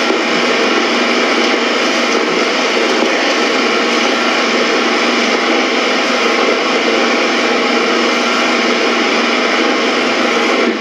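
Film projector running: a steady mechanical whirr and clatter that holds unchanged throughout.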